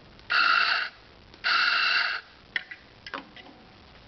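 Coffee grinder run in two short bursts to top up the dose of grounds, followed by a few light clicks and taps of the portafilter.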